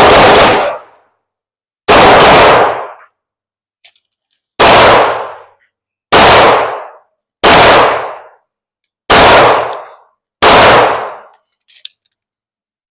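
Pistol shots fired one at a time at a steady, unhurried pace: six loud shots about one and a half seconds apart, each with a short ringing tail, following on from one just before.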